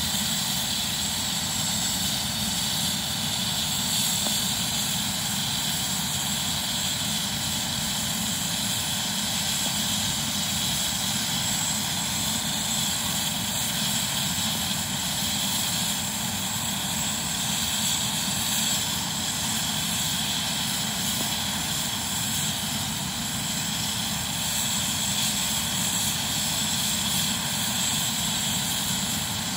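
Rescue helicopter's turbine engines and main rotor running steadily on the helipad during start-up, before lift-off: an even high-pitched turbine whine over the rotor's rushing.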